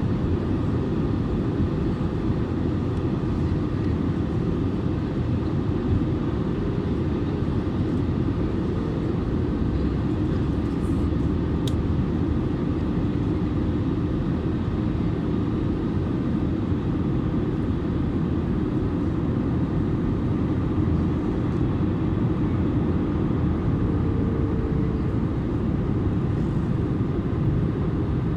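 Steady low rumble of an Airbus A320neo's cabin in flight on approach: engine and airflow noise heard from a window seat, dense in the low end and unchanging.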